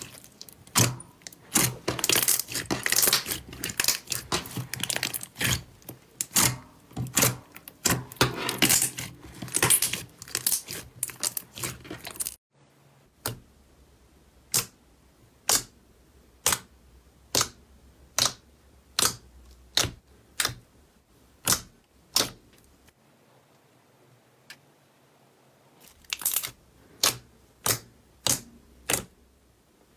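Hands kneading and stretching clear orange slime, giving dense crackling clicks and pops. About twelve seconds in, a cut brings fingers pressing slime in a plastic tub, with single sharp pops roughly every half second to second. The pops stop for a few seconds and then start again.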